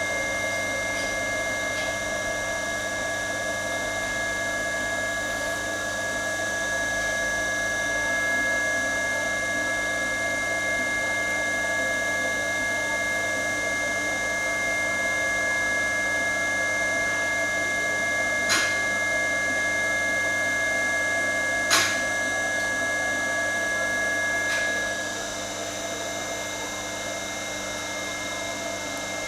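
Two-pair shoe last milling machine running, a steady motor hum with high whining tones. There are two sharp clicks partway through, and the sound drops to a lower level near the end.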